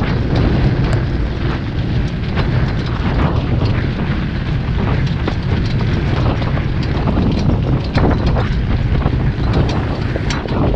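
Wind buffeting the microphone as a standardbred horse trots in front of a jog cart, with many short knocks from the hooves and the rattling cart over a dirt track.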